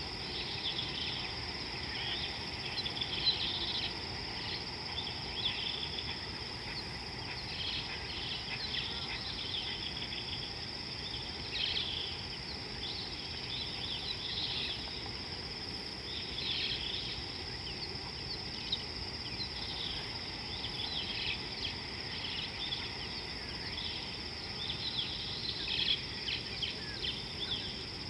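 Outdoor savanna ambience: a steady high insect drone, with many small birds chirping and twittering on and off throughout over a faint low background hiss.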